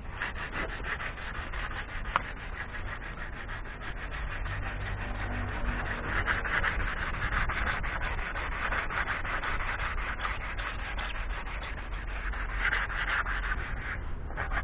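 Sandpaper rubbed back and forth by hand over the scratched paintwork of a BMW E46 in quick, continuous strokes. It is smoothing the edges of a deep scratch before painting, and the strokes grow louder in spells.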